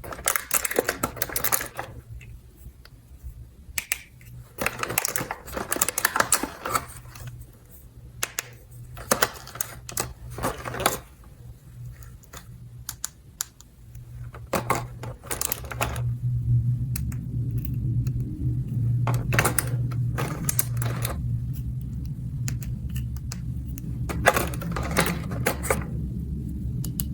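Small hard plastic toy pieces clicking and rattling as they are handled, in irregular clusters of quick clicks. About halfway through a steady low hum comes in under the clicking.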